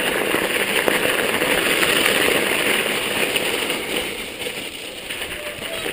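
Mountain bike tyres crunching and crackling through snow, with the bike rattling over the trail; the noise is loudest for the first three seconds and eases off about four seconds in.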